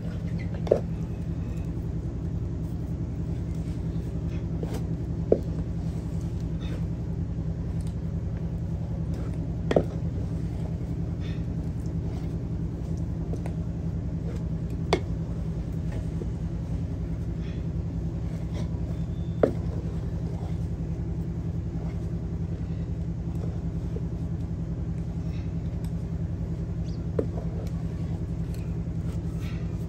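Wooden stirring stick knocking sharply against a metal saucepan about six times, several seconds apart, as thick maize-flour dough is stirred and pressed over the fire. Under it runs a steady low rumble.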